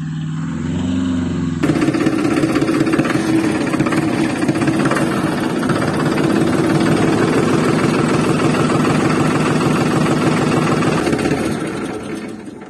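Tractor engine running with a fast, steady chugging beat, after a wavering tone in the first second and a half; it fades near the end.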